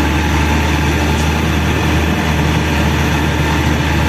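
Caterpillar 120K2 motor grader's diesel engine running steadily with a deep, even drone.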